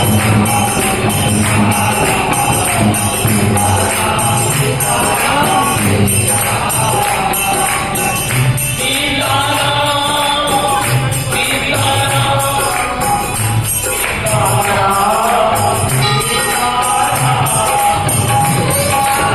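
Devotional kirtan music: harmonium melody over a steady drum beat and jingling percussion, with voices singing.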